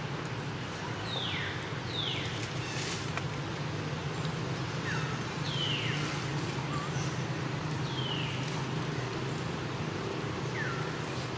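Short, high animal calls, each sliding down in pitch, about seven times at irregular spacing, over a steady low hum.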